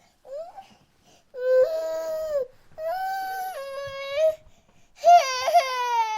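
Infant crying: a short rising whimper, then three drawn-out wails with short breaths between them, the last wavering in pitch.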